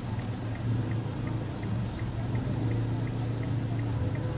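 Steady low engine and road hum heard inside a car in slow, stop-and-go traffic, with a faint regular ticking about three times a second.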